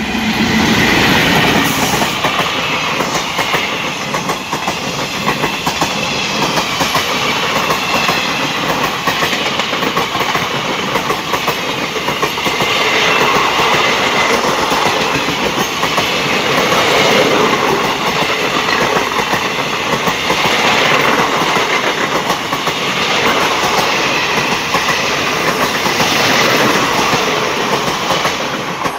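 Coaches of a passing parcel train running close by at speed: a steady, loud rush of steel wheels on rail with rapid clattering over the rail joints, which continues throughout.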